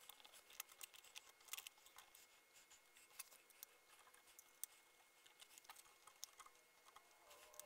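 Faint, scattered light clicks and taps of a glass 3D-printer bed plate being set down on the heated bed and its plastic corner clips being adjusted by hand.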